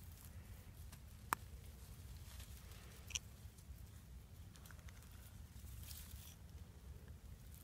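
Faint rustling of pine needles and forest litter as a mushroom is handled close to the microphone, over a low steady rumble. A sharp click comes about a second in, and a fainter one about three seconds in.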